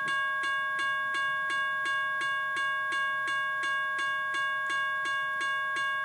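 General Signals electronic railroad crossing bell sound, played back through a speaker: a steady electronic ring of several fixed tones, struck again about three times a second.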